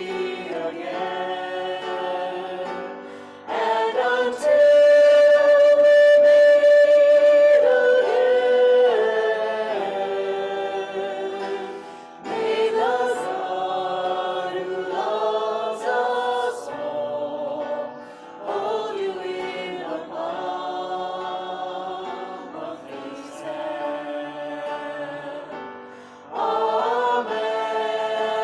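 A choir singing slowly in long, sustained phrases, with brief breaks between them.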